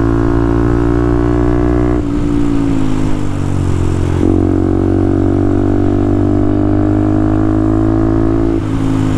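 Motorcycle engine running at cruising speed under wind noise. The engine note sags from about two seconds in, picks up again just after four seconds, holds steady, and dips slightly near the end.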